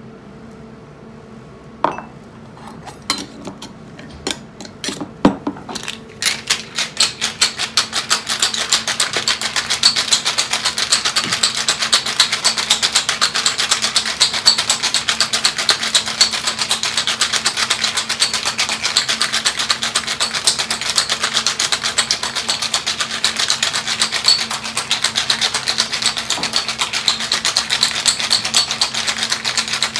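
Ice cubes rattling inside a metal cobbler cocktail shaker, shaken hard in a fast, even rhythm from about six seconds in. Before that come a few separate clinks and knocks.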